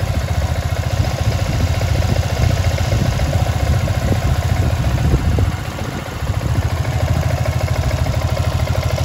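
Freshly rebuilt water-cooled motorcycle engine idling steadily on a warm-up test run, hot enough that the radiator fan has cut in. The level dips briefly a little past halfway, then settles back to the same even idle.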